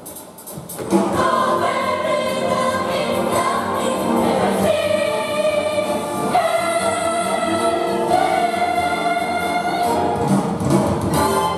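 A musical-theatre cast singing together with accompaniment, holding long sustained notes as a song number draws to its close near the end.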